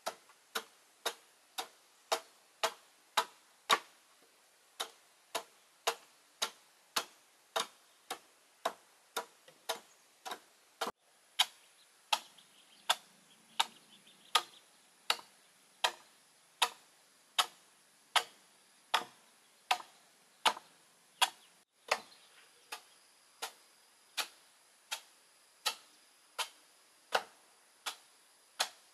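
An adze chopping into a block of wood in steady, even strokes, about three strikes every two seconds, each a sharp knock as it takes off chips.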